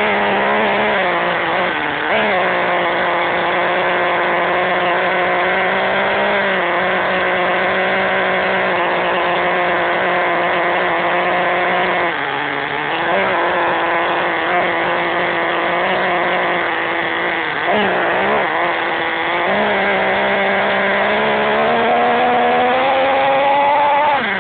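HPI Savage XL nitro RC truck's small two-stroke 5.9 glow engine running at a high, steady buzzing pitch close to the onboard microphone. The pitch sags briefly twice and climbs steadily in the last few seconds as it revs up.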